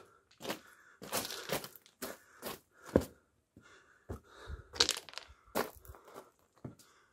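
Footsteps crunching on loose stones and gravel, about two steps a second, with a sharper crack about three seconds in.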